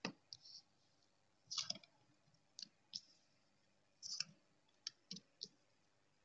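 Tarot cards being dealt and laid down on a cloth-covered table: a string of faint, short clicks and taps as the cards are handled and set in place, about ten spread irregularly over the few seconds.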